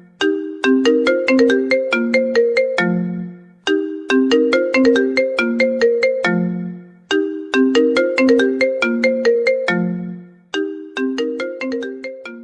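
Mobile phone ringtone melody: a short phrase of quick, bright struck notes ending on a lower held note, repeated four times about every three and a half seconds.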